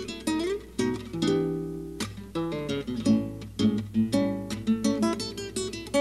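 Background music: acoustic guitar playing quick plucked and strummed notes.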